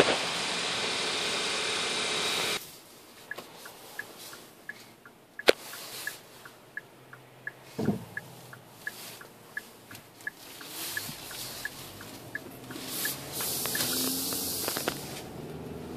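Turn-signal indicator ticking steadily inside the cabin of a 2013 Hyundai Santa Fe, about three ticks a second, with a single sharper click and a thump along the way. The noise of the moving car rises near the end. Before the ticking a steady outdoor noise plays for a couple of seconds.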